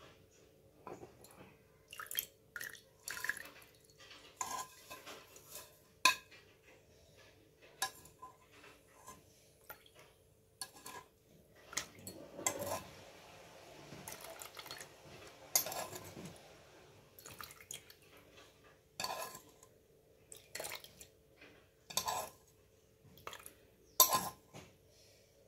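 Cooked herbal oil being poured from a pan into a glass bowl, with sharp clinks and knocks of the pan and utensils against the bowl scattered throughout and a stretch of trickling pour around the middle.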